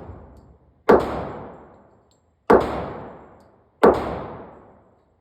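Three 9mm pistol shots from a Glock 17 Gen 4, fired about a second and a half apart, each followed by a long fading echo.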